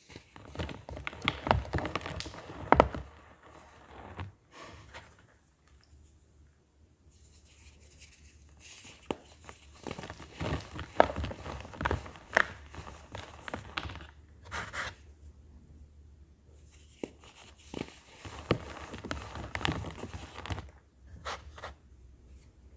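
Pressed baking soda blocks being crushed and crumbled in the hands, in irregular runs of crunches and sharp crackles broken by short quieter pauses.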